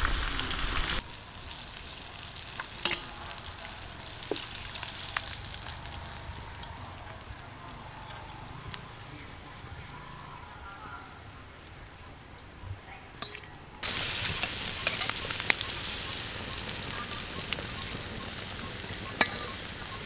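Marinated quail deep-frying in hot oil in an iron kadai: a steady sizzle with scattered pops. It is briefly loud at the start, fainter for most of the time, then suddenly loud and close again in the last third.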